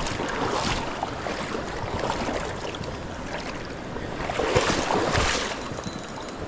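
River water splashing and rushing, with louder surges of splashing about a second in and again around four to five seconds in.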